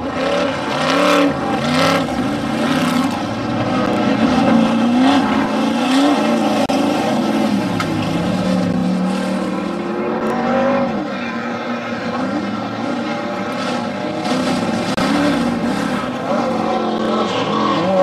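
Off-road race truck's engine revving hard and backing off again and again as it races over a dirt course, its pitch rising and falling with throttle and shifts.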